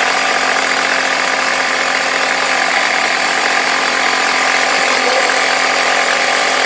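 Stanley FatMax 700-amp jump starter's built-in 120 PSI air compressor running steadily, pumping air through a hose into a car tire that reads about 30 PSI.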